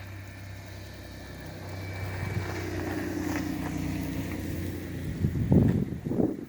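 A motor vehicle's engine hum passing by, growing louder partway through. Near the end, loud gusts of wind buffet the microphone.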